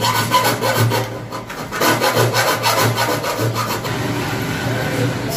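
A round file rasping back and forth in a knockout hole of a steel panel board enclosure, with quick, even scraping strokes, to clear the burr from the punched hole. The strokes die away about four seconds in.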